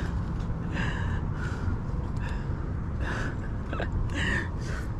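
Steady low rumble of wind on the microphone, with short breathy puffs of a man's breathing about once a second.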